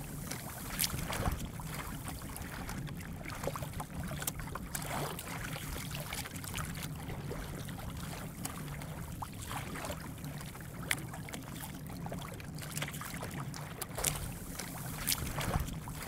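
Water lapping and slapping against the hull of a small wooden sailing dinghy under way in very light wind, with scattered small knocks and clicks throughout.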